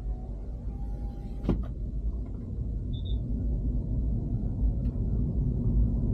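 Motor vehicle running, a steady low rumble slowly growing louder, with a sharp click about a second and a half in.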